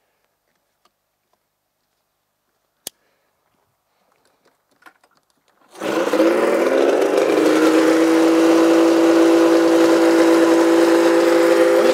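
Snowmobile engine starting about halfway through with a sudden catch, then running steadily at one speed. A single sharp click comes a few seconds before it starts.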